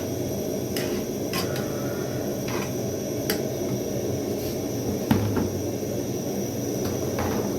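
Light clicks and knocks of kitchenware, about six spread over several seconds, over a steady low hum.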